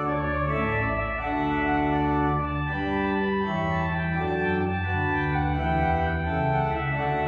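Pipe organ playing a piece: sustained chords that change every second or so over held low pedal bass notes.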